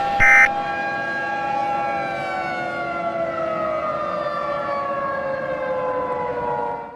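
Siren sounding at a steady pitch, then winding down with its pitch falling from about two seconds in, and cutting off suddenly near the end. Right at the start a short burst of warbling alert data tones, typical of an Emergency Alert System end-of-message signal, sounds over it.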